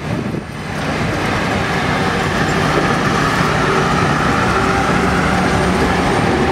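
Passenger train rolling past close by on a curve: the steel wheels of stainless-steel streamlined coaches and a baggage car make a steady rumble and rail noise, dipping briefly just after the start and then holding even.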